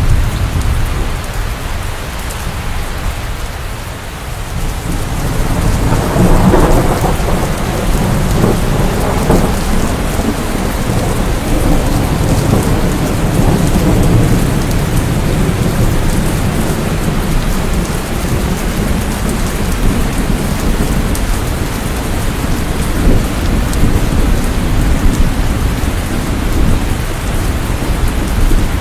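Steady heavy rain with a continuous low rumble of thunder. A fresh roll of thunder builds about five seconds in, peaks a second or two later, then keeps rolling.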